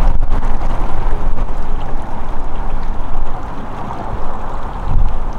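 Water rushing down a narrow concrete irrigation channel, with wind buffeting the microphone.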